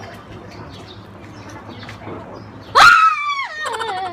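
A sudden high cry about three seconds in, sliding down in pitch over about a second and a half, with a second, lower cry also falling in pitch overlapping it near the end.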